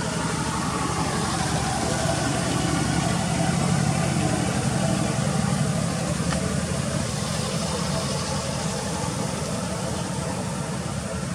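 A motor vehicle engine running steadily, with people's voices in the background.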